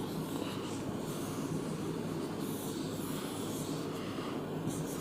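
Steady low hum of room noise with a few faint scratchy sounds.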